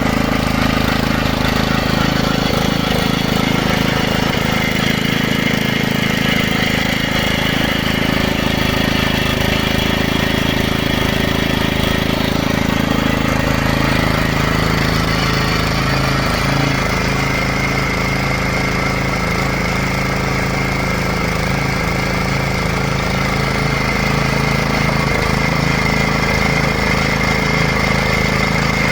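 Geological exploration drilling rig running, a steady engine note with a dense mechanical rattle. A high whine comes in about halfway through.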